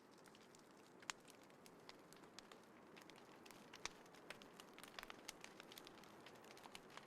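Small wood fire crackling quietly in a compact fire pit: irregular sharp pops and snaps, the strongest about a second in and just before four seconds, over a faint steady hiss.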